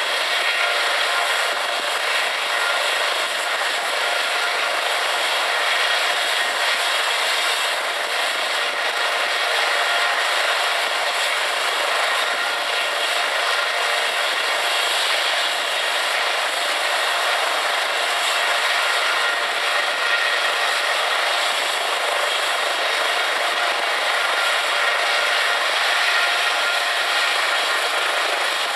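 Eurocopter EC135 air-ambulance helicopter running on the ground with its rotors turning: a steady, loud turbine whine and rotor noise that holds even throughout.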